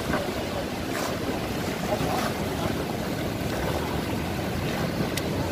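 Surf washing in over the shallows with wind noise on the microphone, and a couple of faint sharp clicks.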